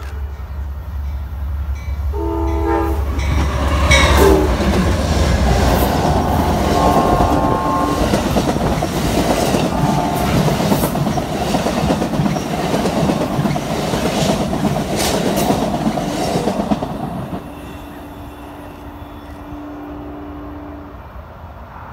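Amtrak passenger train with bilevel Superliner cars sounding a horn blast about two seconds in, then passing close at speed: a loud rush of steel wheels on rail with rapid clicks over the rail joints. It drops away after about seventeen seconds, leaving a fainter, lower steady horn-like tone.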